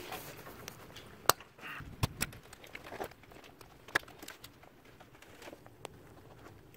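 Hand tools and parts being handled over an engine: scattered sharp clicks and light knocks, the loudest just over a second in, two close together around two seconds, and another at four seconds.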